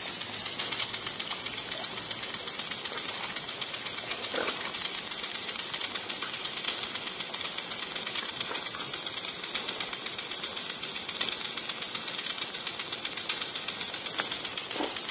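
Impact lawn sprinkler ticking in a fast, even rhythm as its arm strikes the water jet, over the steady hiss of the spray.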